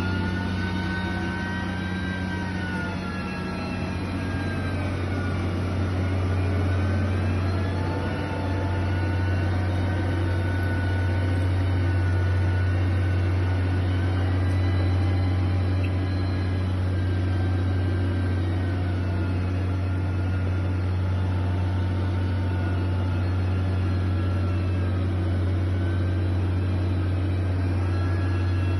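Heavy construction machine's diesel engine running steadily with a deep hum, its pitch drifting slowly up and down as the revs change.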